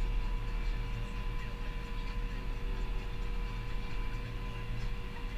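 Tractor engine running steadily while driving, heard from inside the cab, with a steady high whine over the engine drone.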